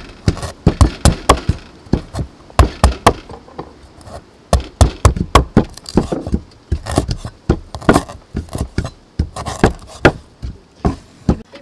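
Steel cleaver chopping slices of root on a thick wooden chopping board: a run of sharp knocks, two or three a second, with a short pause about four seconds in.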